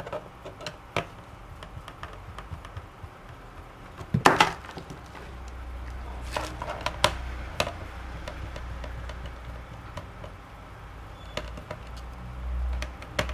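Small clicks and knocks of a screwdriver and of handling a laptop's plastic base as its rear screws are taken out, with a louder clatter of knocks about four seconds in.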